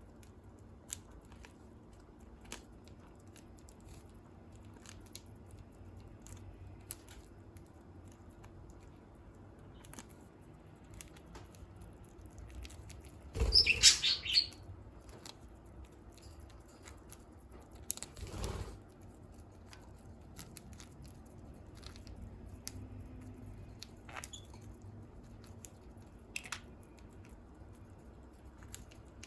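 Budgerigars nibbling and chewing perilla leaves, heard as scattered small clicks. About fourteen seconds in there is one loud budgie chirp, and a few seconds later a shorter, duller burst.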